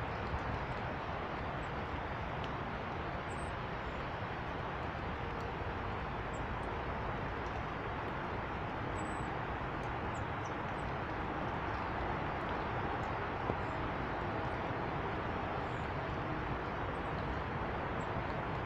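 Short, faint, high chirps of small birds at feeders, scattered irregularly over a steady outdoor background roar.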